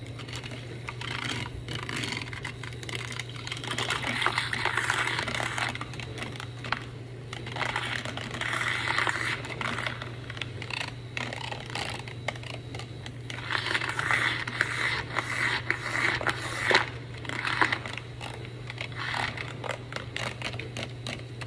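Battery-powered handheld milk frother whisking a powdered drink mix in a glass. A steady motor hum runs throughout, with a frothy whirr that swells in stretches and scattered ticks.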